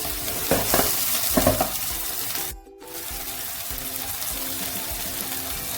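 Onions and garlic frying in sunflower oil in a pot, a steady sizzle with a few clinks early on, under soft background music. All sound drops out briefly about halfway through.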